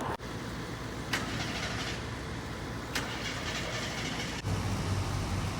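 Steady road vehicle noise, with a low engine hum coming in about four and a half seconds in.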